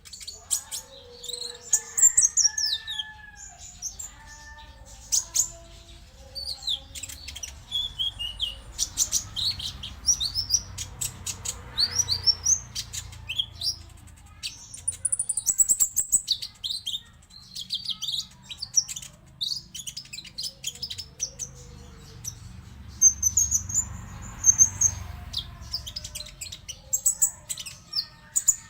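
Konin birds singing a dense, rapid mix of high chirps, trills and short whistled glides. Fainter, lower whistled calls run underneath.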